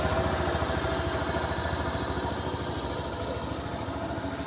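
Suzuki Access 125 scooter's single-cylinder four-stroke engine idling through its exhaust after the throttle is let go, easing down over the first couple of seconds and then running steadily.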